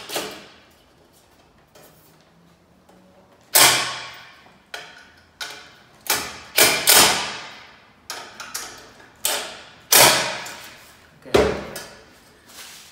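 Cordless impact driver running screws into a ceiling fan's metal motor housing in about a dozen short, sharp bursts, each cutting off and ringing away. The first few seconds are quieter.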